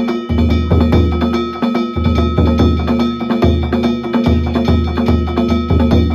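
Danjiri festival music (narimono): a big taiko drum beating in a fast, driving rhythm while hand-struck kane gongs clang without a break over it.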